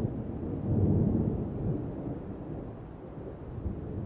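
Low rumble of thunder that swells about a second in and slowly dies away.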